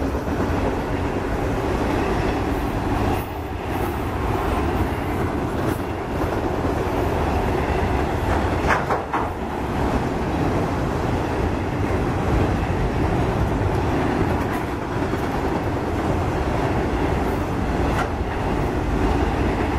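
Autorack freight cars of a CSX train rolling steadily past in a continuous rumble, their wheels clicking over the rail joints. A short, sharper sound stands out about nine seconds in.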